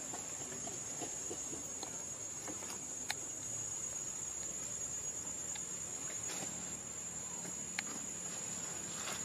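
Insects, such as crickets or cicadas, making a steady high-pitched drone, with a few faint sharp clicks about three and eight seconds in.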